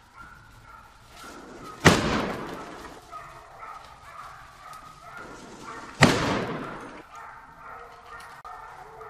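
Two rifle shots about four seconds apart, each with a long echo, from a Browning MK3 semi-automatic rifle in .300 Win Mag. Hunting hounds bay faintly between and after the shots.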